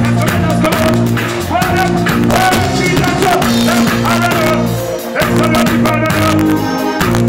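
Live reggae band playing loudly on stage, with bass, drums and a singing voice, recorded close to the drum kit on a phone.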